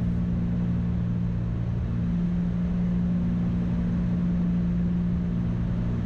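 Cessna 310's twin piston engines droning steadily in the cockpit during the landing approach.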